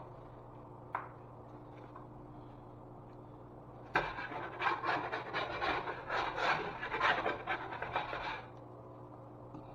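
A hand tool scraping or rubbing against drywall in quick, uneven strokes for about four seconds, starting about four seconds in.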